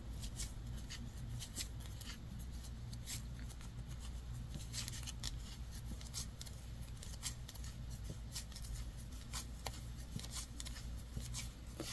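Wooden knitting needles clicking softly as stitches are knitted, with yarn rubbing against them: faint, irregular ticks over a low steady room hum.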